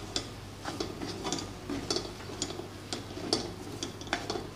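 Metal spoon scraping and knocking against a metal kadai, about two to three strokes a second, as thick masala is stirred to cook the spice powders through.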